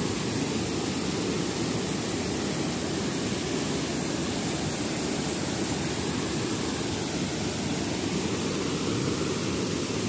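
Small waterfall pouring into a pool, a steady, unbroken rushing noise.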